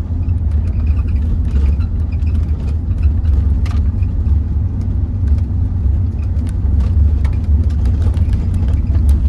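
Camper van driving along a forest road: a steady low rumble of engine and road noise, with light scattered ticks and rattles.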